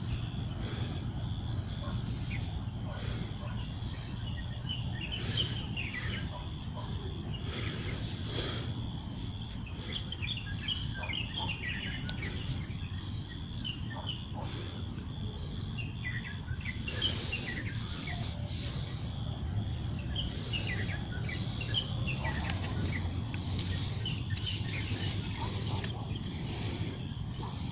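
Birds chirping in many short calls over a steady low hum, with a thin, steady high-pitched tone running underneath.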